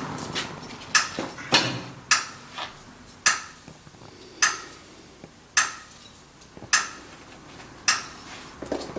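Sharp metallic knocks repeating evenly, about one a second, each with a short ring.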